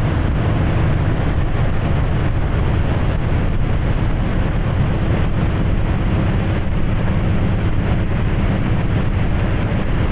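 Wakeboard tow boat's engine running steadily at towing speed, a low drone under a constant rushing noise.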